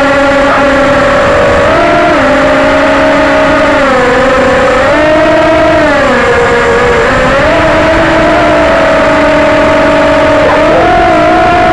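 Small quadcopter drone's propellers and motors buzzing loud and steady, the pitch gliding up and down every few seconds as the motors speed up and slow down.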